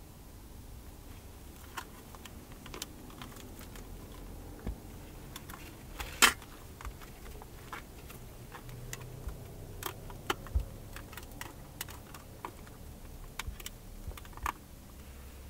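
Close handling noise: irregular light clicks and taps of small objects being handled, with one sharper click about six seconds in, over a faint low hum.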